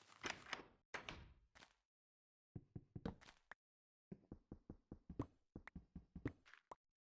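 Faint irregular knocks and clicks: a clattering patch in the first two seconds, then a rapid run of about five sharp knocks a second in the second half.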